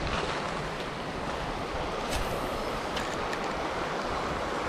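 Shallow river running over a bed of stones: a steady rush of water.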